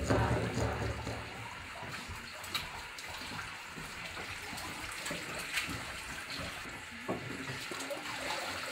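Water running from a kitchen tap, with a few light clinks of dishes or utensils.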